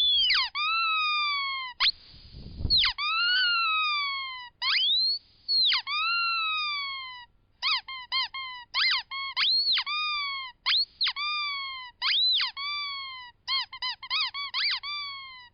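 Rubber squeaky animal toys squeezed over and over. Quick runs of short squeaks alternate with longer squeaks that slide down in pitch. A low thud comes about two seconds in.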